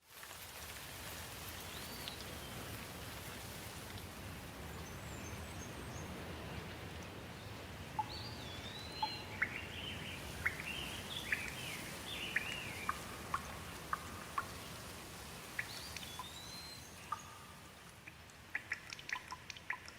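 Steady rain falling, with birds calling over it in short whistled phrases. From about eight seconds in, single drips tap out sharply, coming thicker near the end.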